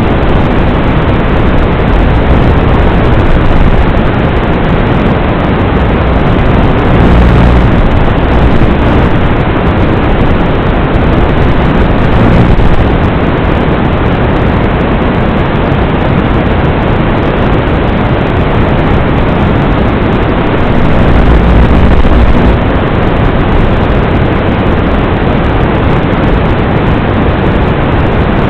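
Loud steady rushing noise with low rumbling swells and no clear tone, cut off above a narrow bandwidth: the audio feed of a Torrent 110 mini FPV quadcopter in flight.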